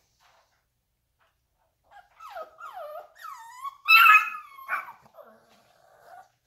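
Seven-week-old American Bully puppies whining and yelping: a run of short falling whines, a louder yelp about four seconds in, then a longer, lower whine near the end.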